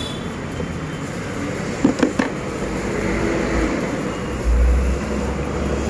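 Steady street traffic noise with a low rumble that swells about four and a half seconds in, and a couple of sharp knocks about two seconds in.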